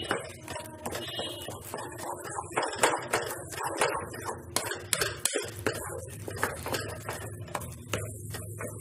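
Flat spatula scraping and knocking against a black kadhai as thick semolina halwa is stirred, with irregular repeated scrapes and taps.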